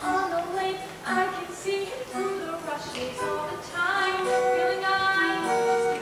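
A young female voice singing a musical-theatre song, holding pitched sung notes over instrumental accompaniment.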